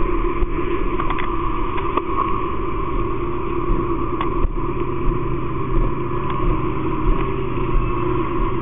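Fire engine running steadily at the scene, a constant mechanical hum, with a few short knocks about a second and four seconds in.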